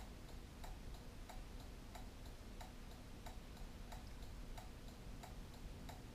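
Faint, steady ticking of a Honda Gold Wing's turn-signal flasher, about three ticks a second, with the hazard flashers switched on.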